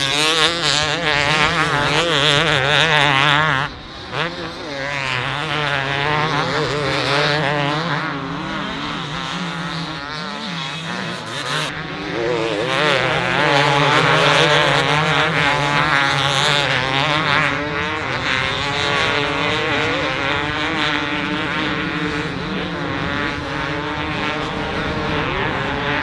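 Two-stroke motocross bikes racing, several engines at once revving up and down as they accelerate and shift, over a steady low hum. The sound drops briefly about four seconds in.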